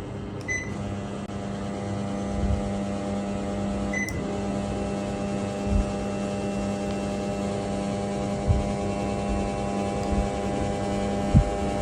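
Panasonic ceiling fan running with a steady electrical hum, the noise that its faulty control board (motherboard) makes. Two short high beeps sound, about half a second and four seconds in, with a few soft low thumps.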